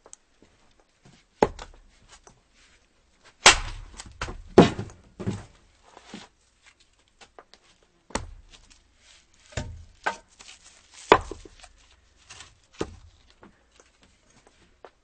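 Axe chopping firewood: a series of sharp, irregularly spaced blows into wood, roughly one every second or two, with smaller knocks and clatters between them.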